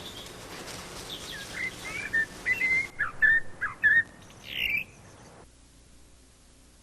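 A bird chirping: a quick run of short whistled chirps, ending in one downward-sliding note, after which only faint hiss remains.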